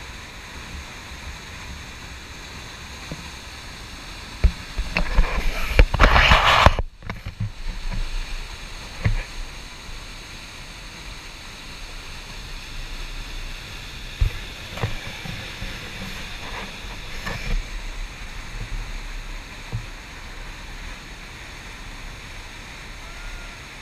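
Steady rushing of a waterfall plunging into a canyon. About four and a half seconds in, a loud burst of rumbling noise builds and then cuts off suddenly, and a few short knocks follow later.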